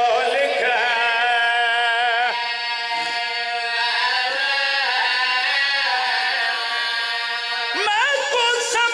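A man's solo voice chanting a long, wavering melodic line of Punjabi devotional verse into a microphone, in the sung style of a majlis recitation.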